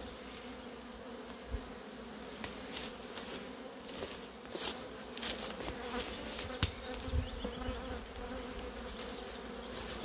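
A honey bee colony buzzing steadily around its opened hive, with scattered sharp clicks and knocks as the wooden super is lifted off the stack.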